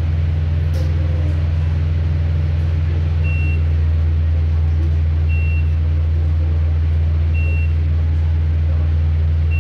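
A steady, loud low hum of running machinery, likely metro train equipment, with a short high-pitched beep repeating about every two seconds.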